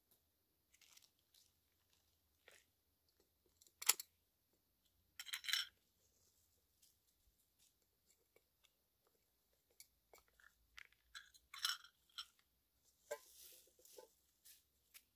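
Small objects being handled by hand: scattered light clicks and scrapes with a few short crunchy crinkles, the sharpest click about four seconds in and the loudest crinkle about a second and a half later.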